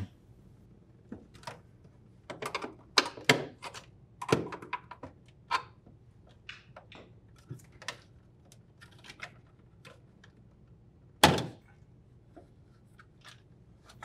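Scattered plastic clicks and knocks as the tabs of an LG refrigerator's ice maker are released with a flathead screwdriver and the unit is pulled down and slid forward out of its mount, with one louder thunk about eleven seconds in.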